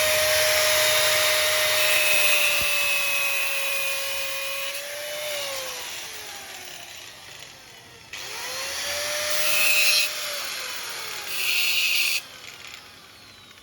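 Angle grinder cutting a screw to length for an electric lock's cylinder. It runs for about five seconds, is switched off and winds down with a falling whine, then is started again about eight seconds in. A short loud cut comes near the end before it winds down again.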